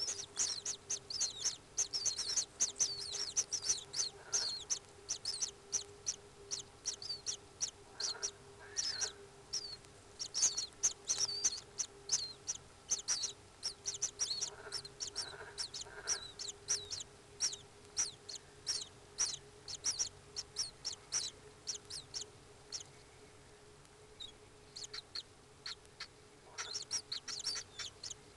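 Common kingfisher calls inside the nest chamber: fast runs of short, shrill, high notes that fall in pitch, several a second, with a pause of a few seconds near the end. A faint steady hum runs underneath.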